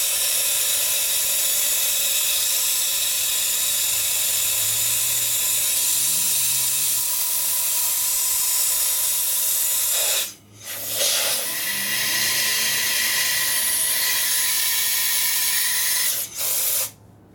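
Compressed air from a shop air line hissing steadily as it is blown through the vent louvers of a 12 V tire inflator to cool it. The air cuts off for a moment about ten seconds in, again briefly near the end, then stops.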